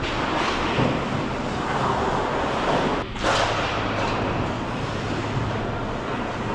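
Ice hockey rink game noise: a steady, echoing wash of skate blades scraping the ice and play on the rink, broken by a short drop and a sudden restart about three seconds in.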